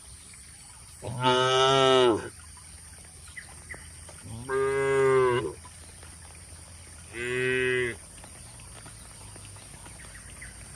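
A cow mooing three times, each call a drawn-out low tone about a second long, the third a little shorter.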